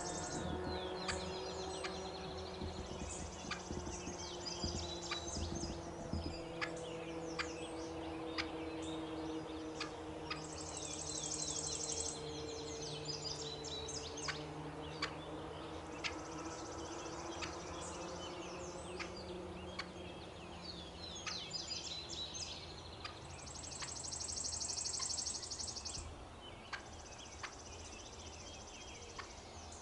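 Young wild hen turkey clucking and yelping in short, sharp notes scattered through the whole stretch. Behind it a high buzzing comes and goes, over a low steady drone.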